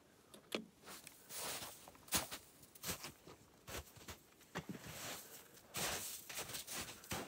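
Footsteps in snow and handling noises: a scatter of short, uneven crunches and soft knocks.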